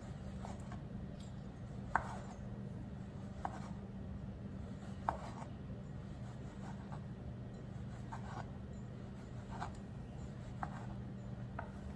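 Large kitchen knife slicing hot dogs into rounds, each cut ending in a sharp tap on a plastic cutting board, about one cut every second or so, over a steady low hum.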